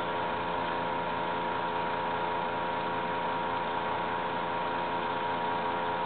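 Steady mechanical hum over an even hiss, with several constant tones and no change in loudness.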